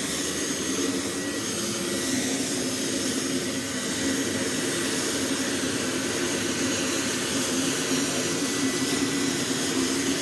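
Gas-turbine auxiliary power unit (APU) running steadily at full start-air output, a constant jet roar with a low drone and a faint high whine. It is blowing start air into a Concorde Olympus 593, which is being turned over but does not light because its fuel line was not connected.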